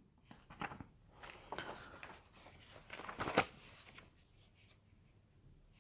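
Faint handling sounds: scattered light rustles and clicks, with one louder tap a little over three seconds in.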